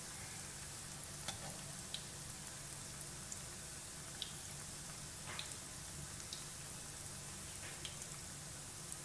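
Bread fingers deep-frying in hot oil in a frying pan: a steady sizzle with a small pop or crackle every second or so.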